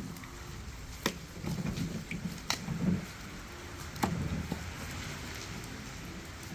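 A knife chopping fish: three sharp knocks about a second and a half apart, over a steady low background noise.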